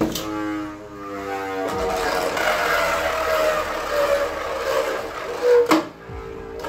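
Guilty Longinus Beyblade Burst top launched with a click and spinning in a plastic stadium: a roaring whine that falls slowly in pitch as it loses speed, over the hiss of its tip scraping the stadium floor. A sharp knock a little over five seconds in, as it strikes the stadium.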